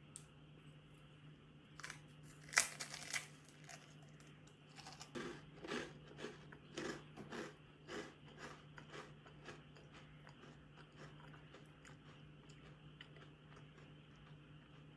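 A person biting into and chewing something crunchy. There are a few sharp crunches about two to three seconds in, then chewing about twice a second that fades away.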